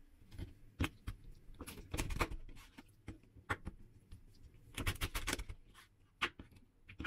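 Kitchen knife cutting raw chicken on a wooden cutting board: scattered sharp knocks and taps of the blade on the board, with quick runs of several strikes about two seconds in and again about five seconds in.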